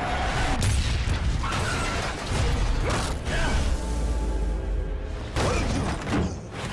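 Commuter train derailing: a heavy, continuous rumble with several crashes and short screeches of grinding, twisting metal as the carriages come off the track, set under a film score.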